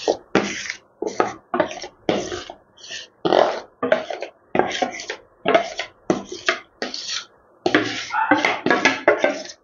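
Spatula scraping the last sticky dhokla batter out of a mixing bowl into a cake tin: about twenty short, wet scraping strokes, roughly two a second.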